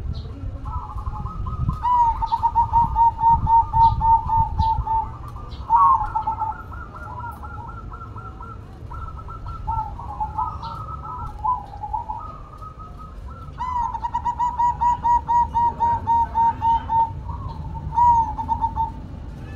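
Caged zebra dove (perkutut) cooing in long runs of quick staccato notes, about four a second, near the start and again about two-thirds through, with shorter coo phrases between, over a low steady background rumble.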